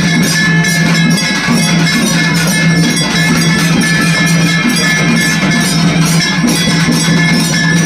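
Temple devotional music for a deeparadhana lamp offering: bells struck rapidly and continuously over a steady low drone.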